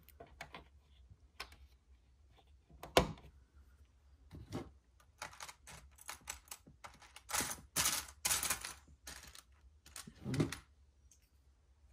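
Small hard plastic clicks and rattles of LEGO pieces being handled and pressed onto the model, with one sharp click about three seconds in and a quick run of clicking in the second half.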